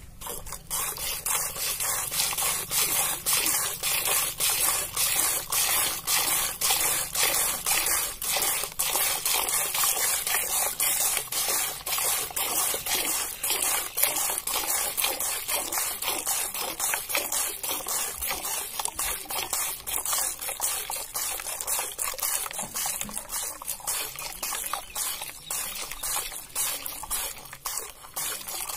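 Cow being milked by hand into a steel bowl: a steady rhythm of milk squirts hissing into the foamy milk already in the bowl.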